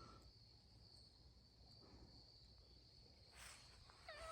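Faint, steady high-pitched trill of insects such as crickets, with a soft brief rustle a little after three seconds in.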